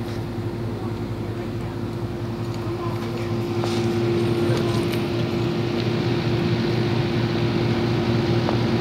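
1969 Lennox central air conditioner's outdoor condenser unit running: a steady hum with a fan's rush, getting a little louder about four seconds in.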